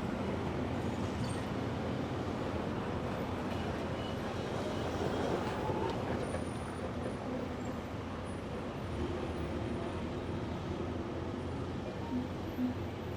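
City street traffic: a steady rumble of passing cars and heavier vehicles, with one vehicle passing a little louder about five seconds in.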